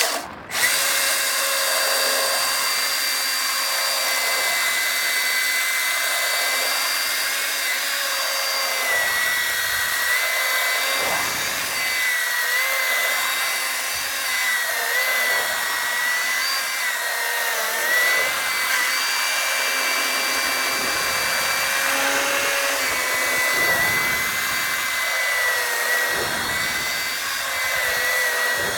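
Milwaukee electric chainsaw running at full speed with a steady high whine from its motor and chain, starting abruptly right at the beginning; its pitch dips slightly now and then.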